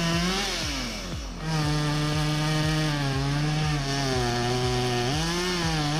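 Chainsaw running at high revs. Its pitch sags and the sound dips for about a second near the start, then climbs back, with a brief sag again near the end.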